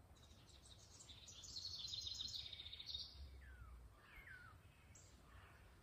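Faint birdsong: a quick run of chirps building over the first three seconds, then a few downward-slurred whistled notes.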